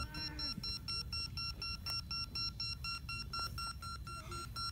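Beep baseball ball's built-in beeper sounding a rapid, evenly repeated electronic beep. This is the audible signal that lets a blind batter locate the ball.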